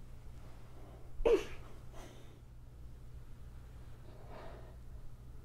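A short, sharp breath about a second in, then fainter breaths, from a child doing pushups, over a steady low hum.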